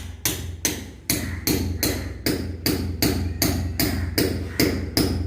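Hammer striking a steel fan anchor hook, driving it into a drilled hole in the ceiling slab: steady, evenly spaced blows about two and a half a second, over a low steady hum.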